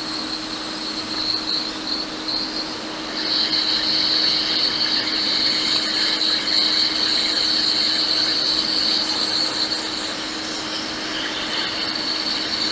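Hot air rework station blowing steadily onto a MacBook Air logic board to desolder a shorted capacitor: a steady airflow hiss with a high whistling whine and a low steady hum, getting louder about three seconds in.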